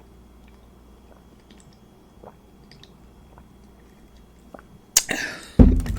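Quiet close-up chewing of food with small wet clicks and smacks, then near the end a loud, long burp.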